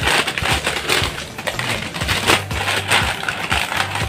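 Metallized plastic snack packet crinkling and crackling as it is cut open with scissors and handled, a continuous run of irregular crackles.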